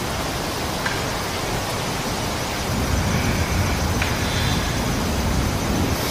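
Night-time audio-recorder recording made inside a tent, played back: a steady hiss with two faint sharp knocks, about a second in and about four seconds in, and a low rumble in the middle. The recordist hears what sounded like wood knocks and things moving around outside the tent.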